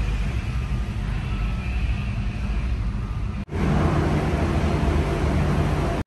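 Small car driving slowly, its engine and rolling noise heard from inside the cabin. It breaks off abruptly about three and a half seconds in and resumes as a steadier low drone.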